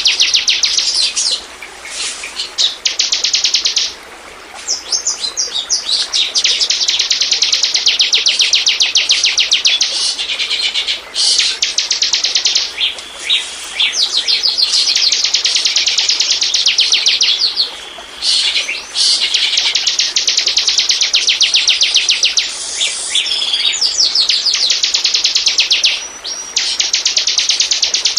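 Bar-winged prinia (ciblek) song played as a lure call: long, rapid strings of high notes lasting several seconds each, broken by short pauses.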